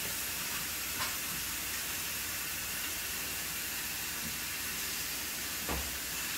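Pork chops sizzling as they sear in a hot skillet, a steady hiss. Two light knocks break through, about a second in and near the end, the second with a dull thump.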